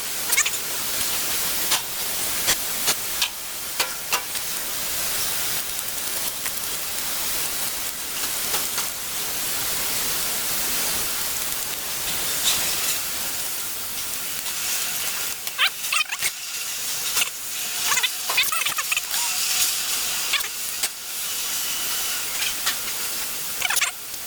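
Steady spray hiss with scattered sharp clicks and taps, as a stuck centre-console knob clogged with dirt is sprayed and worked by hand.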